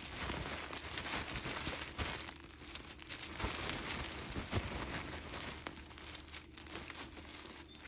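Henry vacuum cleaner's cloth dust bag being handled while dirt is dug out of it: continuous rustling and crinkling with scattered small clicks.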